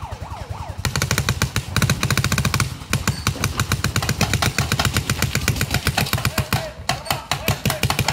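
Paintball markers firing rapid strings of shots, about ten or more a second, pausing briefly twice.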